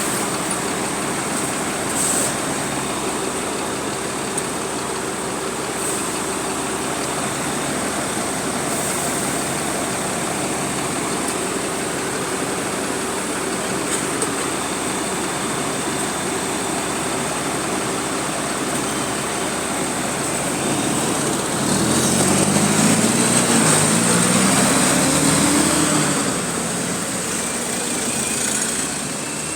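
Diesel bus engine idling steadily, then revving up as the bus pulls away, the engine note rising for several seconds about two-thirds of the way through before easing off.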